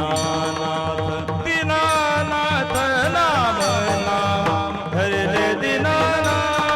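Warkari kirtan music. A mridang beats a steady rhythm under sustained melodic tones, and the singing line glides through ornamented bends around the middle.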